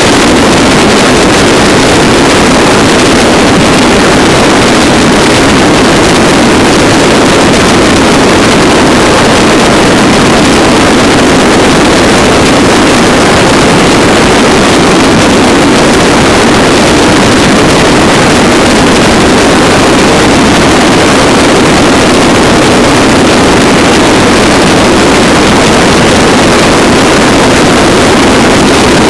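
Steady, loud rush of wind and engine noise from a motorcycle cruising at highway speed, with wind on the microphone.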